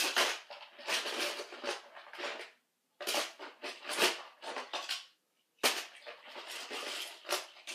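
Toy trains clicking and clattering against each other as they are handled and set down, in quick bursts with two short pauses.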